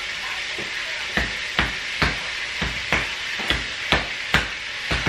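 A knife chopping on a cutting board: sharp, evenly spaced strokes about two a second, starting about a second in, over a steady hiss.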